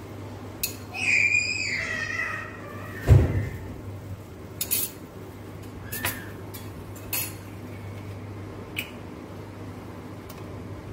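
Metal cooking utensils clinking against a pot: a heavy thump about three seconds in, then several separate sharp clinks. A short falling squeal sounds about a second in, over a steady low hum.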